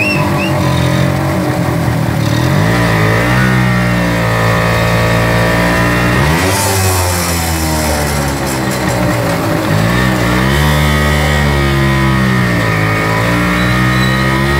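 2005 Kawasaki HD-III tricycle's 125 cc two-stroke single-cylinder engine under way, rising in pitch four times as it is throttled up and easing back down between.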